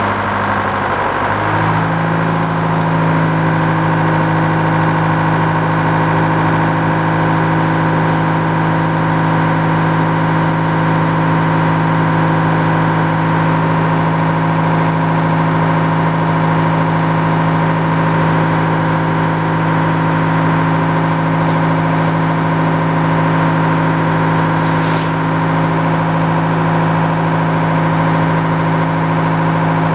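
Engine driving an old Frick sawmill, coming up in speed about a second or two in, then running steadily at an even pitch.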